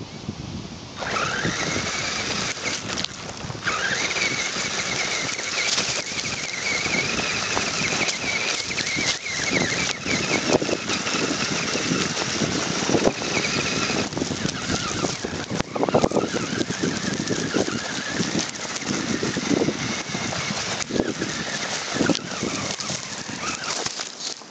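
Electric motor and gearbox of an RC rock crawler whining as it drives over stones; the whine rises about a second in, drops out briefly, rises again and then wavers with the throttle. Crunches and knocks of the tyres and chassis on gravel run under it.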